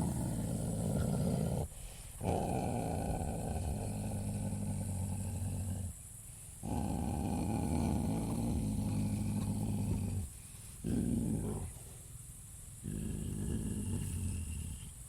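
A large animal growling low: five long growls in a row, each one to a few seconds long, broken by short pauses.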